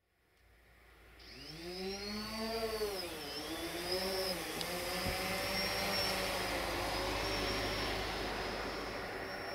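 Multirotor drone's electric motors and propellers whining over a steady rush of air, fading in over the first two seconds. The pitch rises and falls several times as the motors change speed while the drone manoeuvres.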